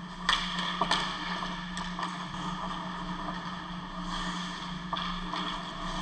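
Ice hockey play: skates scraping on the ice and a few sharp clacks of sticks and puck, over a steady low hum.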